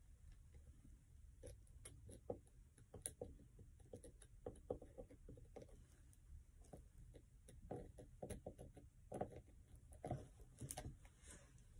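Faint, irregular small clicks and taps of handling as a plastic glue bottle is squeezed and dabbed onto the screw heads of a spiked metal traction plate on a boot sole.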